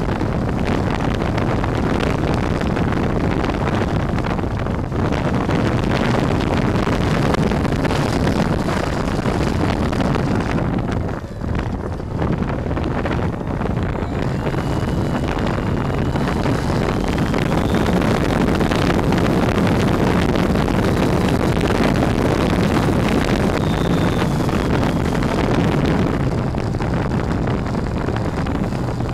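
RC airplane's motor and propeller running in flight, heard through the onboard camera's microphone with wind rushing over it. The sound dips briefly about eleven seconds in, and a faint rising whine runs a few seconds later.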